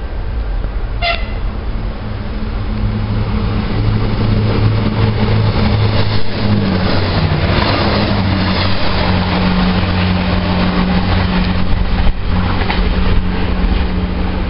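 Renfe Media Distancia passenger train running past close along the platform: a short horn toot about a second in, then a loud rumble and motor hum that build up and hold as the carriages go by, the hum dropping in pitch part way through.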